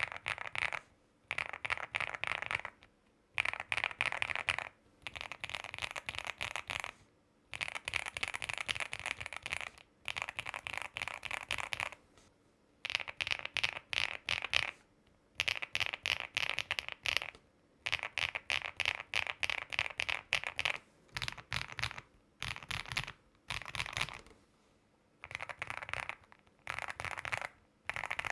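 Mechanical keyboards typed on in short bursts of rapid keystrokes, one to two seconds each with brief pauses between. Successive bursts come from keyboards with different switches and sound profiles, from clacky and clicky to deeper, thocky ones.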